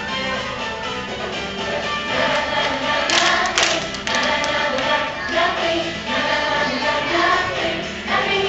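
A group of young children singing a song together as a choir, with music playing along. A brief cluster of sharp hits sounds about three seconds in.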